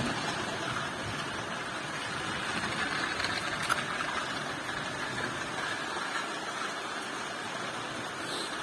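Steady rain falling, an even hiss with no breaks, with a single small click about three and a half seconds in.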